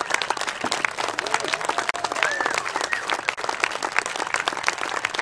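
Crowd applauding steadily, with a few voices calling out and cheering over the clapping.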